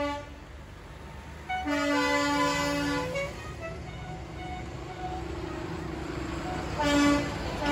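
Tractor horn sounding a long blast about two seconds in, with a second tone stepping down in pitch alongside it, and a short blast near the end, over the steady rumble of passing tractor engines.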